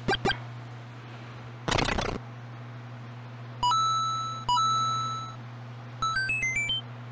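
Edited-in sound effects: a short whoosh about two seconds in, then two bell-like chimes, each a quick low note stepping up to a held higher one that fades, and near the end a fast rising run of six short notes. A steady low hum lies under it all.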